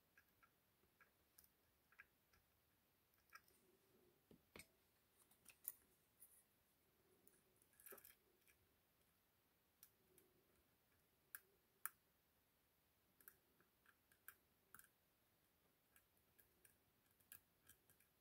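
Faint, irregular clicks and ticks of a lock pick lifting and setting pins inside an ASSA 6000 sidebar lock cylinder during single-pin picking, scattered roughly one every half second to second.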